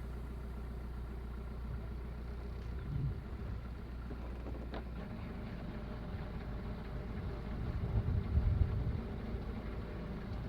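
Narrowboat's diesel engine running at low revs while the boat is manoeuvred. Its low hum changes about halfway through and briefly grows louder near the end.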